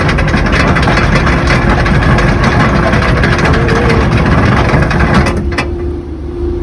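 A vehicle's engine running steadily under loud rushing noise; the rushing drops away sharply about five seconds in while the low engine rumble and a steady hum carry on.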